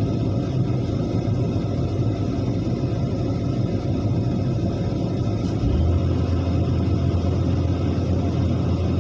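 Excavator's diesel engine running with a steady low rumble, which grows deeper and a little louder about five and a half seconds in.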